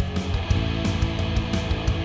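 Distorted electric guitar through the Digitech RP360 XP's Marshall JCM800 amp model with overdrive, playing 1980s-style hard rock over a backing track with drums.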